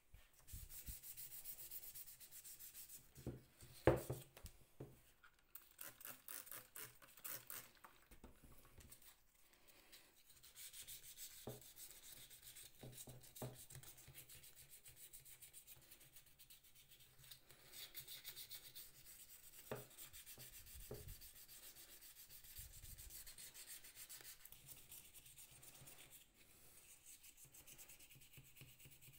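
The frame of an old glazing point driver being scrubbed by hand with an abrasive: faint, scratchy back-and-forth rubbing in strokes. A sharp knock about four seconds in.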